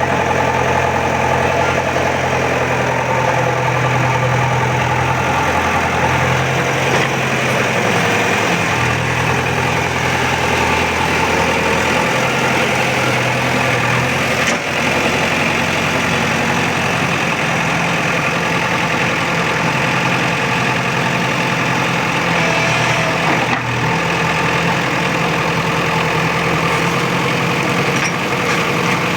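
Diesel engine of an earthmoving machine running steadily during soil excavation. Its engine note shifts up and down several times as the machine works.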